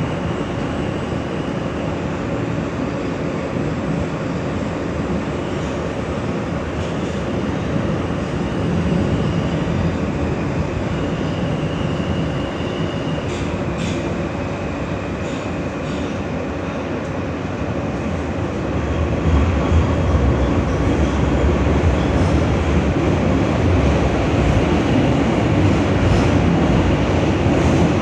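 R160 subway car running between stations, heard from inside: a steady rumble of wheels on rail, with a faint high wheel squeal coming and going and a few sharp clicks around the middle. The low rumble grows louder about two-thirds of the way through.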